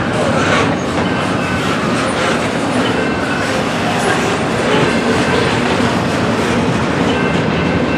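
Double-stack intermodal well cars of a freight train rolling past at speed: a steady, loud rumble of steel wheels on rail with scattered clattering knocks.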